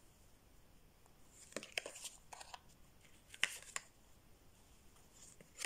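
Tarot cards being handled: a few faint, quick swishes and ticks as cards are slid, flipped and laid down, around two seconds in and again a little later.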